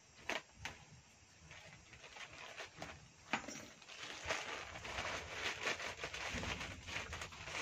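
A parcel's plastic packaging crinkling and rustling as it is handled and opened. A few sharp clicks in the first seconds, then a dense, continuous crinkle from about three seconds in until near the end.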